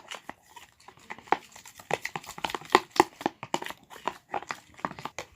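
Spoon stirring white glue and gouache paint in a plastic container, making a quick, irregular run of sticky clicks and wet smacks.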